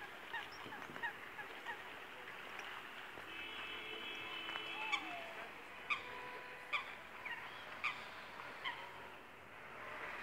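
Water birds calling repeatedly, short downward-falling calls, several a second at first, then thinning to about one a second.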